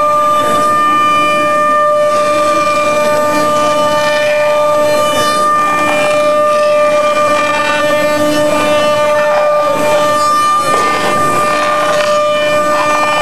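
Patriot OrthoRoute CNC router's 5-horsepower spindle running at speed, its cutter milling an orthotic out of a white plastic sheet: a loud, steady whine of several held tones over the noise of cutting. The tones falter briefly a little after ten seconds, then resume.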